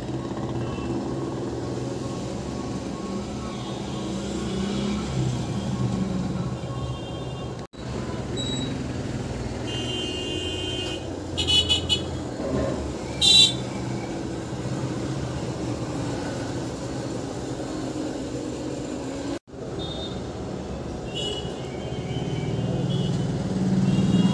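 Steady road-traffic noise with several short vehicle-horn toots, the loudest about thirteen seconds in; the sound breaks off for an instant twice.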